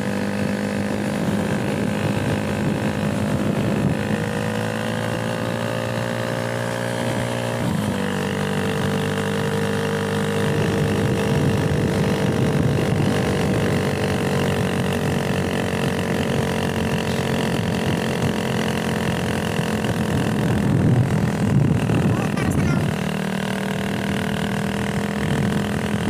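Motorcycle engine running steadily while riding, its note shifting a few times, most sharply about eight seconds in.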